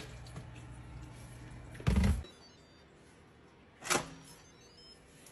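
A dull thump about two seconds in, then a sharp click just before the end as the Instant Pot pressure cooker's lid is set on and closed.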